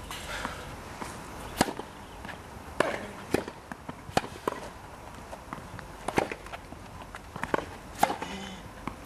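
Tennis rally: the ball popping off strings and bouncing on the court, a string of sharp hits roughly every second, with the players' shoes scuffing between them.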